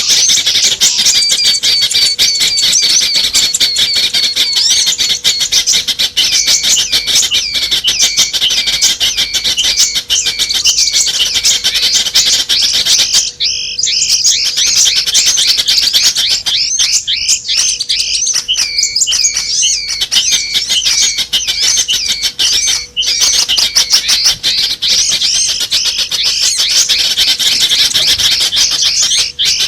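Bird-luring recording of many small songbirds calling at once: a dense, fast stream of high-pitched chips and twitters that thins out briefly about halfway through. A faint steady hum runs underneath.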